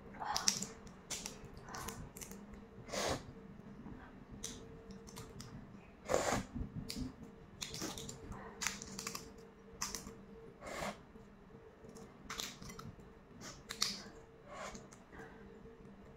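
Balut (boiled duck egg) shell being cracked and peeled by fingers: irregular small cracks and crackles, about one or two a second.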